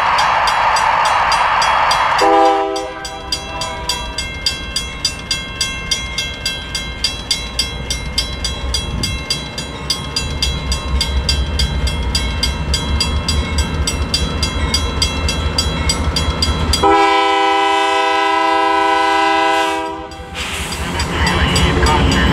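Grade-crossing bell ringing steadily while a Canadian Pacific GE AC4400CW diesel locomotive sounds its multi-note horn: a short chord about two seconds in, then a long blast near the end. The locomotive's diesel rumble builds as it nears the crossing, and a loud rush of train noise comes as it passes at the end.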